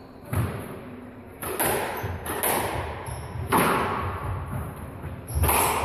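Squash rally: a squash ball is struck by rackets and cracks off the court walls, a handful of sharp hits a second or two apart, each echoing briefly in the enclosed court.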